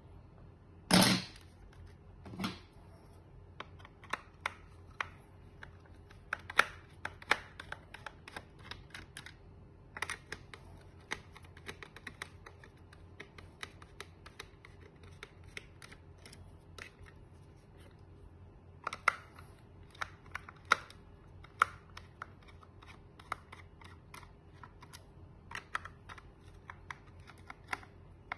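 Irregular small clicks and taps, like hard plastic parts being handled, with a louder knock about a second in and a smaller one shortly after.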